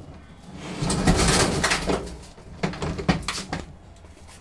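A top-load washing machine's cabinet being swivelled on the floor: a loud scraping drag lasting about a second, followed by several knocks and bumps as it is set down and steadied.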